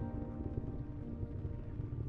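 Background music with sustained chords fading out over a low, steady rumble.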